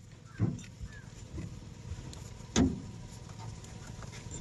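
Small screwdriver prying at the plastic latch of a wiring-harness connector on an excavator's engine control module: a few light clicks and two dull knocks about two seconds apart.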